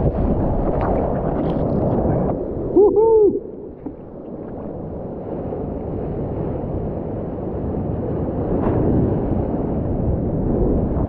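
Water rushing around a surfboard as it rides a wave. About three seconds in comes a surfer's short two-note "woo" hoot, rising and falling. After that, lighter water sloshing and lapping around a board sitting in the surf.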